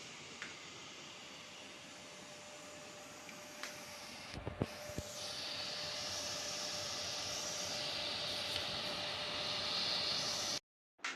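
Electric clothes dryer's heater fan: a few clicks about four and a half seconds in, then a steady airy blowing hiss with a faint hum that grows louder and cuts off suddenly near the end.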